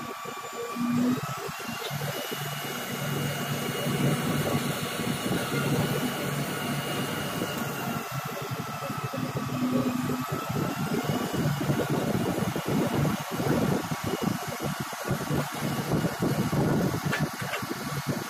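Concrete pump truck's diesel engine running steadily, with a faint whine that slowly rises and falls in pitch.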